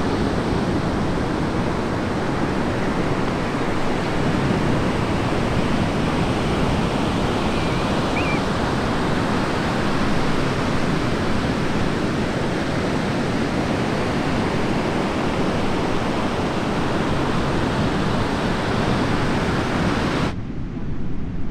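Large ocean surf breaking steadily: a continuous wash of waves and whitewash from a hurricane swell. Shortly before the end the sound cuts abruptly to a duller, lower rumble.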